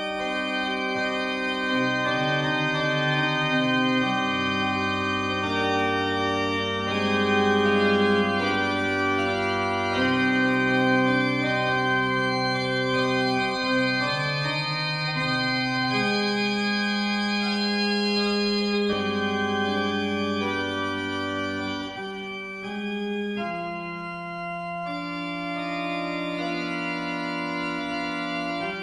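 Organ playing slow, sustained chords that change every second or two over a deep held bass note, growing a little softer in the last few seconds.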